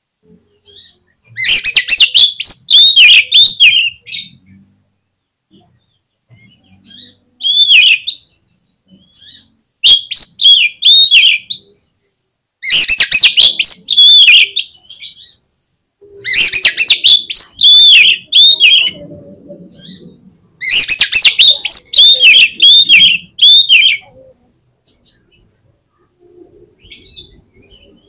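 Oriental magpie-robin (kacer) singing loudly in six bursts of rapid, varied high whistles and harsh notes, each burst one to three seconds long, with short pauses and a few faint calls between them.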